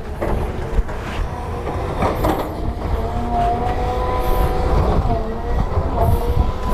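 Caterpillar tracked excavator running as it digs rock, its engine and hydraulics giving a steady whine that rises briefly partway through, with scattered knocks and clatter of rock.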